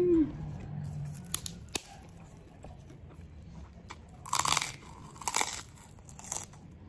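Crisp white krupuk cracker crunched between the teeth in three loud bites near the end, with a couple of small mouth clicks before them. A brief loud pitched sound opens it.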